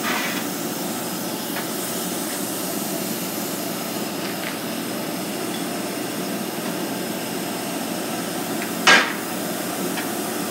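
Steady machine noise in a riveting shop, with one sharp metal knock about nine seconds in, as a hot rivet in a steel tractor wheel is set up for the pneumatic rivet gun.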